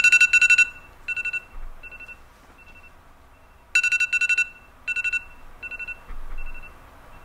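Electronic alarm beeping: bursts of rapid high-pitched beeps, about eight a second. Each burst is followed by fainter repeats that die away, and a second loud burst comes in a little under four seconds in.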